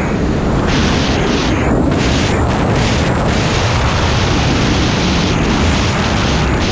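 Snowmobile running steadily at speed, its engine and track noise mixed into heavy wind rumble on the microphone.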